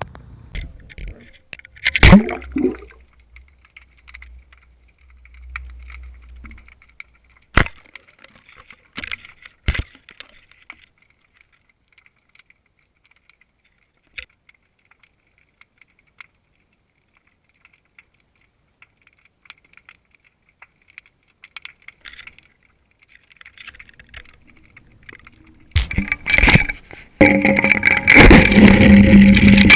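Sharp knocks and clicks from an underwater camera rig being handled, with faint crackling between them. Near the end comes a loud rush of churning water noise.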